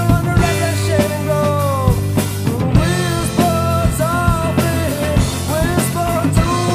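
Rock band recording: drum kit keeping a steady beat under bass and a melody that bends up and down in pitch.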